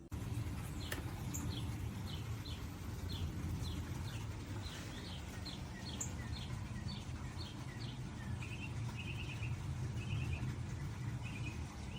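Small birds chirping in short repeated notes, about two a second, changing to short trills near the end, over a steady low rumble.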